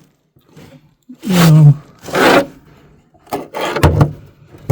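A man's short groan falling in pitch, then a loud breathy exhale, followed by a few small knocks and low mumbled vocal sounds.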